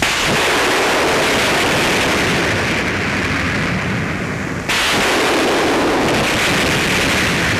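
Loud, continuous noise of weapon fire and shell bursts on an old film sound track, likely for a 4.2-inch recoilless mortar being fired. The noise is cut off abruptly a little past halfway and an equally loud stretch of the same kind starts at once.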